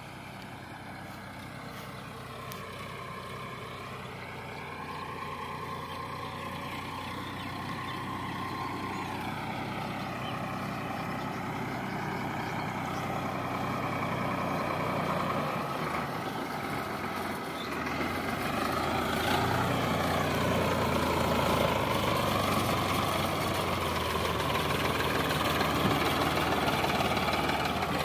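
Sonalika DI 745 tractor's diesel engine running as it hauls a loaded trailer along a dirt track. It grows steadily louder as it approaches, its pitch wavering up and down.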